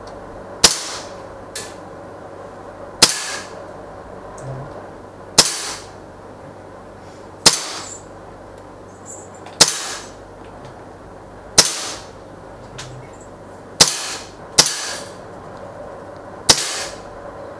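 Umarex-made Colt M45 CQBP CO2 blowback BB pistol firing single semi-automatic shots. There are nine sharp cracks, mostly about two seconds apart, with two shots in quick succession near the end. Fainter ticks come between some of the shots.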